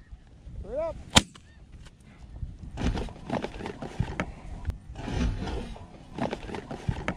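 A snow goose honks once, and about a second in a shotgun fires once at close range, the loudest sound here. Rough wind noise and scattered knocks follow.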